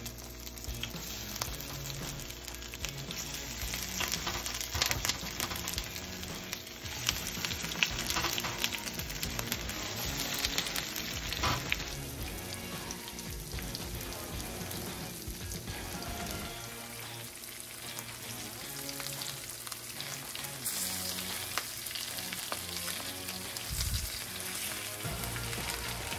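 Breaded green tomato slices frying in hot coconut oil in a pan: a steady crackling sizzle.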